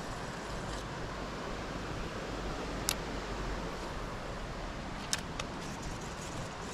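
Steady rush of a small river's flowing current, with three short sharp clicks, one about three seconds in and two close together just after five seconds.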